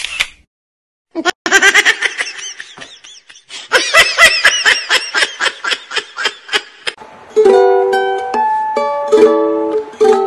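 A rapid string of short sounds with bouncing pitch for several seconds, then light plucked ukulele music starts about seven seconds in.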